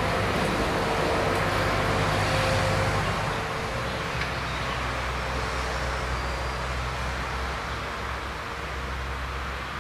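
Road traffic going by: a truck's engine and tyres pass, louder for the first three seconds, then the vehicle noise settles lower and slowly fades.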